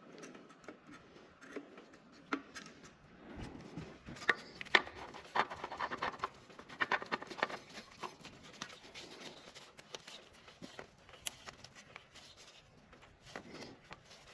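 Small scrapes, rubs and clicks of a new oil filter being handled and screwed on by hand after its gasket is smeared with oil.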